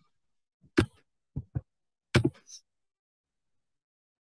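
A man's brief, wordless vocal sounds, about four short ones within the first two and a half seconds.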